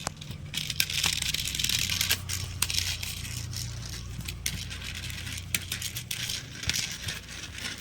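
A toy boat is being run through wet mud and water: an irregular splashing hiss scattered with small clicks, over a steady low hum.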